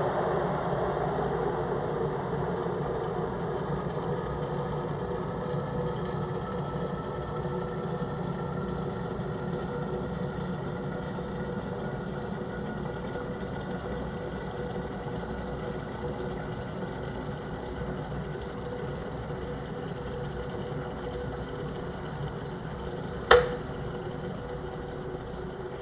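Kettle boiling: a steady hiss and rumble that slowly dies down, with a faint tone gradually rising in pitch. A single sharp click sounds near the end.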